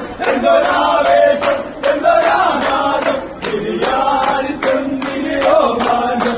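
A group of men singing a Mappila song together in chorus, clapping in time at about two claps a second.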